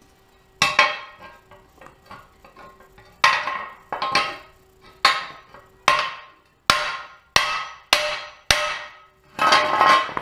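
A hand hammer strikes an aluminum skid plate laid on a small steel anvil about a dozen times, each blow a sharp metallic clang that rings briefly. The blows come roughly every half second to second, bunching together near the end.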